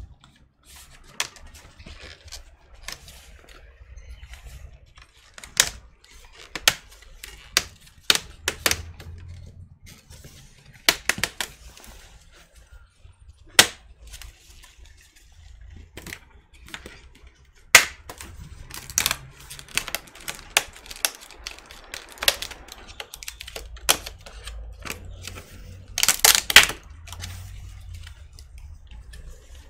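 Irregular sharp plastic clicks and snaps as an HP 14-bw laptop's screen assembly is pried apart by hand, with quick clusters of snaps a few times as clips let go.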